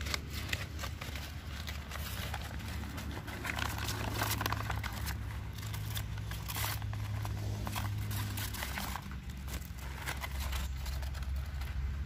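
Brown paper bag crinkling and crackling irregularly as hands unfold and open its folded top, over a steady low hum.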